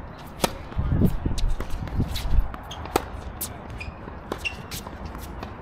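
Tennis rally on a hard court: a sharp pop of racket on ball from a serve about half a second in, then more racket strikes and ball bounces at irregular intervals of about a second.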